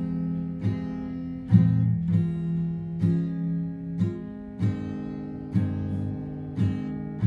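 Acoustic guitar strummed slowly in an even basic rhythm, about one strum a second with each chord ringing on between strums, changing chord after every few strums.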